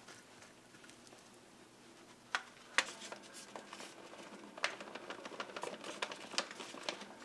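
Light clicks and taps in a small room: two sharper taps a couple of seconds in, then a quick scattering of small clicks near the end.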